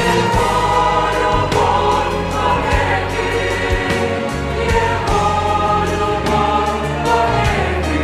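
Mixed youth choir of girls' and boys' voices singing a hymn in sustained chords, with steady low notes underneath.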